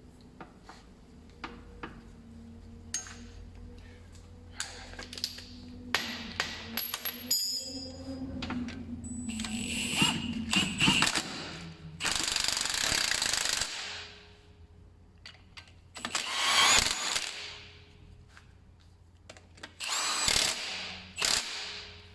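Power tool running in three bursts of about two seconds each, driving in the bolts of a car's gearbox mount. Before them come scattered metallic clicks and knocks of tools and parts being handled.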